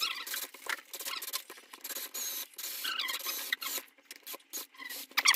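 Countersink bit cutting into a plastic ski-boot heel pad, making irregular scraping clicks and short squeaks as it is worked slowly and carefully into the screw holes.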